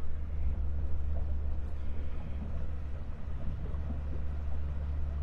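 Boat under way on open water: a steady low rumble of its motor mixed with wind and water noise.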